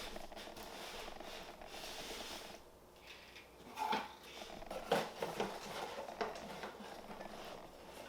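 Paper and cardboard packaging rustling and being handled as a box is opened, with a couple of sharper knocks about four and five seconds in.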